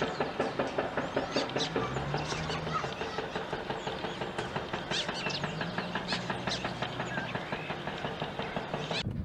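Birds calling: many short high chirps and sweeping calls over a fast, even chattering of about four pulses a second.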